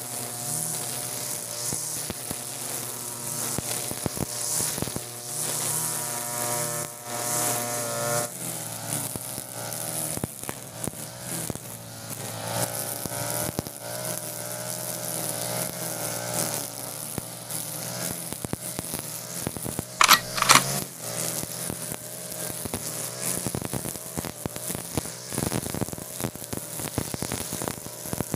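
Two-stroke engine of a TB43 brush cutter running fast while its 2.4 mm nylon-line trimmer head whirs through overgrown grass. The pitch holds steady at first, then wavers up and down as the line meets the grass. About two-thirds of the way through comes a brief, loud hit.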